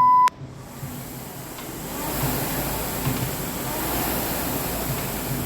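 A timer's long start beep ends just after the start. Then a Concept2 RowErg's fan flywheel spins up into a steady rushing whir that swells with each rowing stroke, about once a second.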